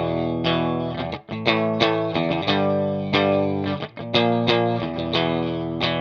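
Electric guitar played through overdrive, a riff of sustained distorted chords and picked notes, with brief breaks about a second in and near four seconds in.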